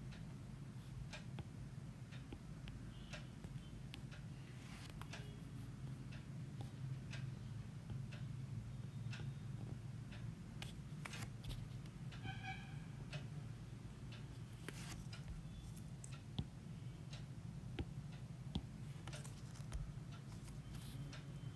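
Faint scratches and taps of a pen drawing a diagram, with a brief squeak about twelve seconds in, over a steady low hum.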